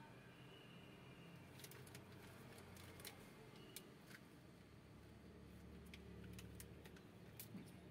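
Near silence: a faint low hum, with a dozen or so faint, irregular small clicks.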